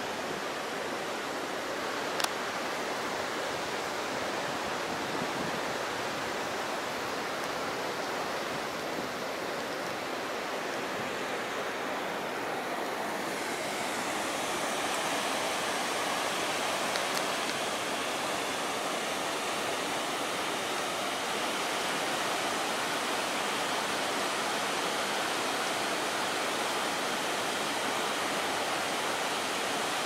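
Water of a tiered waterfall rushing steadily over rock, a continuous even rush that grows a little louder and brighter about halfway through. A single sharp click about two seconds in.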